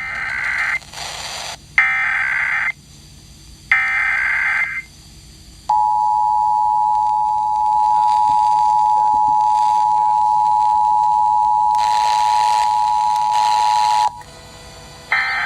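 Emergency Alert System National Periodic Test broadcast over FM radio: three SAME header data bursts, each about a second long, then the steady two-tone attention signal held for about eight seconds before it cuts off. A further data burst starts just at the end.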